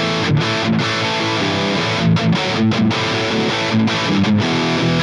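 Strandberg electric guitar with Seymour Duncan pickups, played through a distorted Line 6 HX Stomp amp preset: a chugging riff broken by many short, sharp stops.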